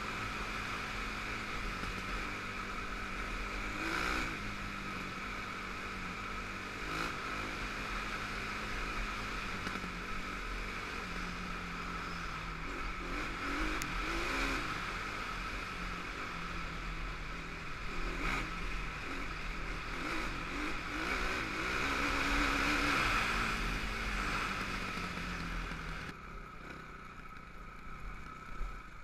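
Honda TRX450R quad's single-cylinder four-stroke engine running as it is ridden, its pitch rising and falling with the throttle. It turns quieter a little before the end.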